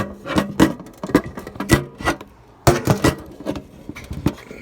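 Plastic pop tube fidget toy being stretched and squashed, its ribbed sections snapping open and shut in quick, irregular pops.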